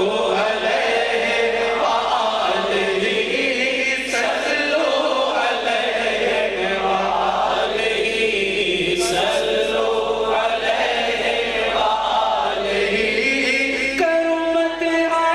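A man singing a naat, a devotional praise song, through a microphone and PA, drawing out long held notes that bend up and down, over a steady backing of sustained voices.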